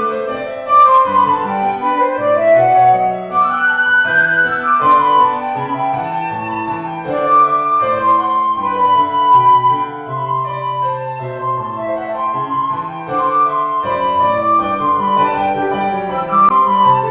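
Flute and piano duet: the flute plays a flowing melody, with rising and falling runs, over a piano accompaniment.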